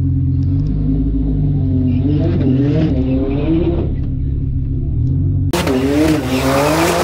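Porsche 911 Turbo S twin-turbo flat-six running steadily at the start line. About two seconds in, its revs begin rising and falling. Five and a half seconds in, a much louder rush of engine and wind noise with a climbing note comes in, then cuts off suddenly.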